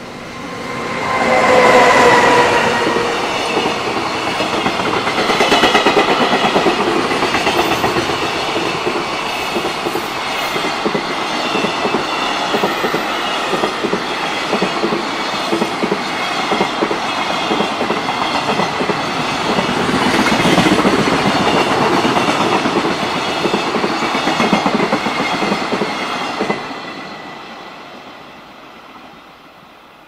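JR Freight EF210 electric locomotive passing at speed with a long train of container flat wagons. A brief pitched tone falls slightly as the locomotive goes by, then comes a steady rumble and clatter of wagon wheels on the rails for over twenty seconds, fading away near the end.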